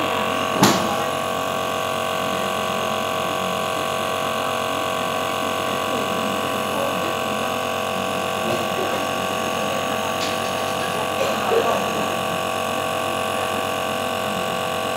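Compressor nebulizer's motor running with a steady electric hum. A sharp click sounds about half a second in.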